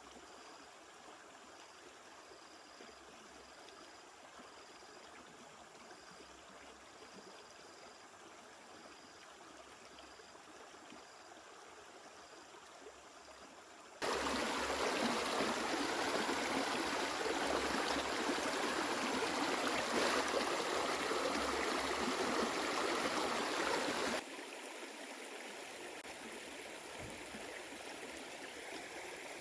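Flowing stream water, a steady rushing. About halfway through it turns suddenly much louder for some ten seconds, then drops back to a softer level.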